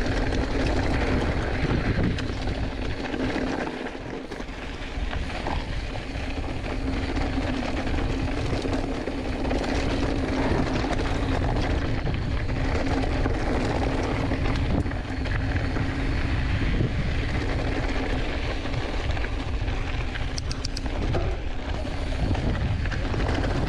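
Knobby tyres of a Giant Fathom 2 hardtail mountain bike rumbling steadily over a loose, rocky dirt trail at speed, with wind buffeting a chest-mounted action camera's microphone.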